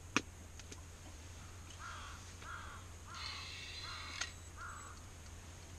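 A crow cawing five times in a steady series, each caw about two-thirds of a second apart. A couple of sharp clicks come near the start and about four seconds in.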